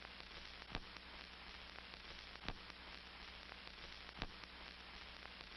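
Near silence: faint steady hiss and hum, with a soft click about every second and three-quarters.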